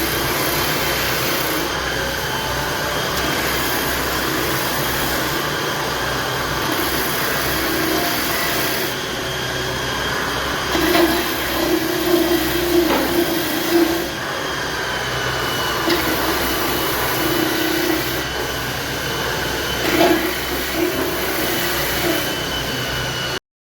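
A power tool running steadily on wood, with a few louder stretches in the middle.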